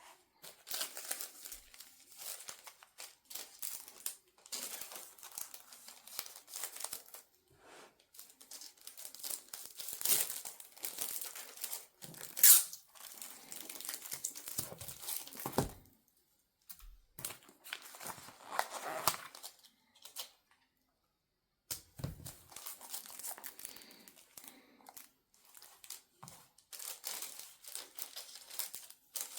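Paper being handled: irregular tearing and crinkling rustles, with one sharp snap about twelve seconds in and two short pauses in the second half.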